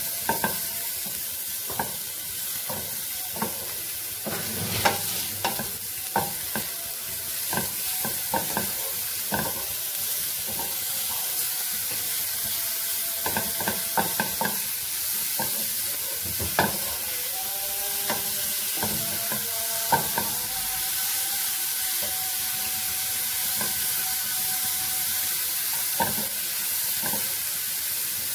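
Shredded cabbage, carrot, capsicum and onion sizzling in oil in a nonstick frying pan while a wooden spatula stirs and scrapes them, with frequent short knocks of the spatula against the pan. Vegetables being sautéed for a sandwich filling.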